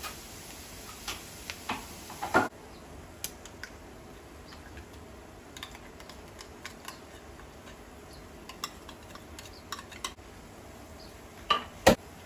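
Spoon scraping and tapping tomato paste out of a small tin can into a frying pan: scattered light clicks and clinks, with two sharp knocks of a utensil near the end.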